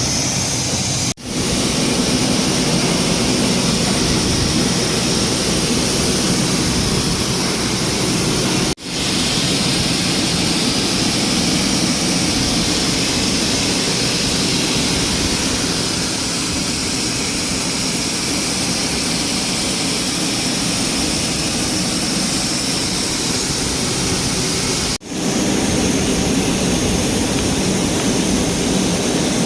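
Ford Ranger 2.2L engine running steadily, recorded close, as a loud even rushing noise cut off and resumed three times.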